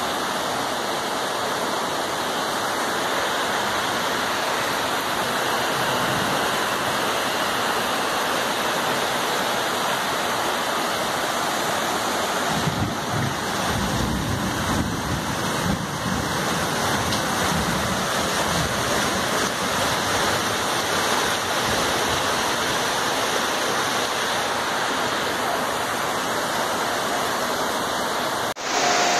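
Heavy rain and floodwater rushing through a flooded street, a steady, even roar of water. A brief low rumble sounds about halfway through.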